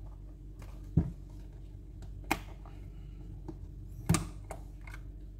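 Plastic clicks and snaps from a Garmin 76CSx handheld GPS casing being prised apart by hand: three sharp snaps, about a second in, a little after two seconds and around four seconds, with fainter clicks between. A steady low hum underneath.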